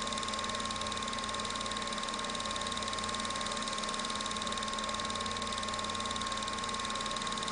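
Home-movie film projector running: a steady mechanical whirr with a fast, even clatter of the film advancing, and a thin steady whine.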